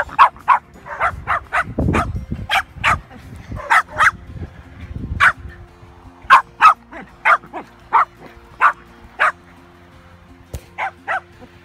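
Shetland sheepdog barking while herding sheep: a run of about twenty short, sharp barks, often two or three a second, with a brief pause near the end.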